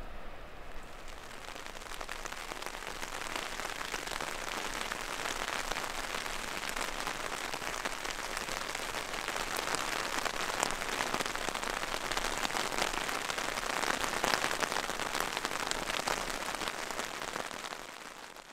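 Steady rain falling, a dense patter of individual drops that fades out at the end.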